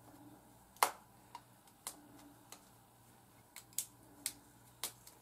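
A string of small, sharp, irregular clicks and snaps, about ten in five seconds, the loudest a little under a second in: fingers with long nails twisting locs of hair and fastening them with tiny rubber bands.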